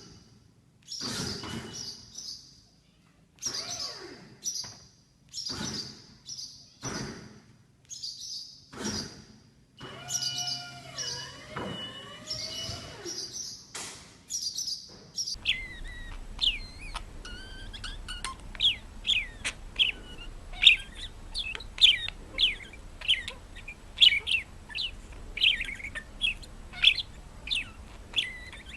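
Bird chirping. At first there are short high calls about once a second. Then, after about fifteen seconds, comes a quicker run of short chirps that each sweep downward, over a faint steady hum.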